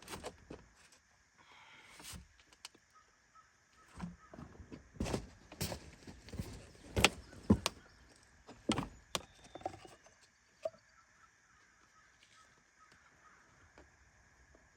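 Irregular knocks and clicks of an oil bottle and funnel being handled while engine oil is topped up, loudest about halfway through, then dying away.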